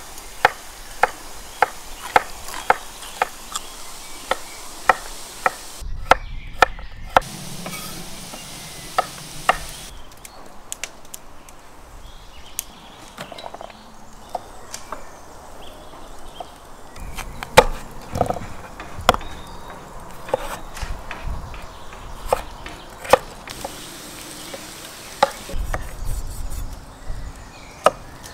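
Kitchen knife chopping on a wooden cutting board, cutting carrots and then chunks of raw meat: sharp knocks, at first about three a second, later slower and uneven.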